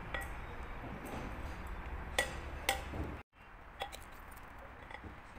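Cut-glass chandelier bowl clinking against the metal frame as it is fitted by hand: a few light clicks, with two sharp clinks about two seconds in, half a second apart, each ringing briefly.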